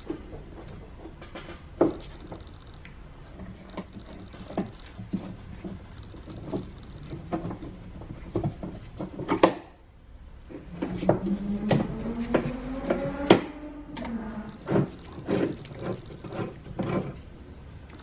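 A Torx driver works the bolts on a Cadillac STS trunk latch actuator as the latch is worked free of the trunk lid: scattered clicks, taps and small knocks of metal and plastic. A little past the middle comes a squeaky rubbing stretch.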